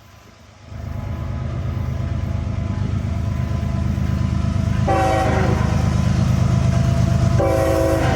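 A train rumbling closer, growing louder, with its horn blowing about five seconds in and again near the end.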